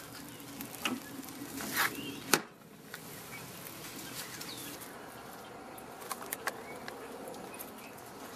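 Charcoal grill's metal lid lowered and shut: a couple of light knocks, then a louder clank about two seconds in. A low steady outdoor background follows, with a few faint ticks.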